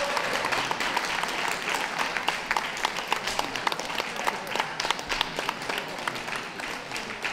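Crowd applauding, many hands clapping at once, the applause gradually dying down toward the end.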